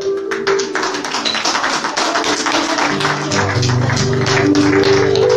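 Congregation clapping in welcome over music with held chords; a low bass line comes in about three seconds in.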